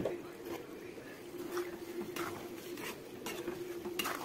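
A few scattered light knocks and scrapes of a steel spoon in a kadai of mango pieces cooking in oil, as stirring begins near the end, over a faint steady hum.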